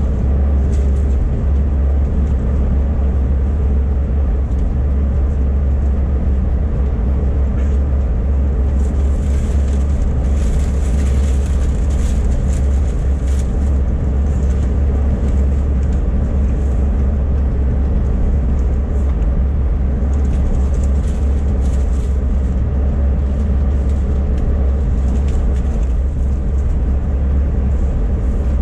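Steady low rumble inside an Airbus A380 cabin as the airliner taxis with its engines at idle.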